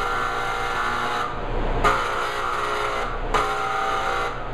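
Handheld spray gun spraying a white chocolate coating in bursts, a buzzing hiss that starts and stops with the trigger. One burst cuts off about a second in, another starts near two seconds, and a third follows straight after it and stops near the end.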